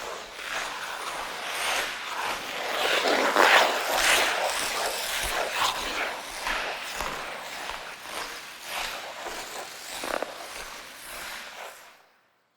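Ice skate blades scraping and gliding on ice in a run of irregular strokes, loudest about three to four seconds in, fading out near the end.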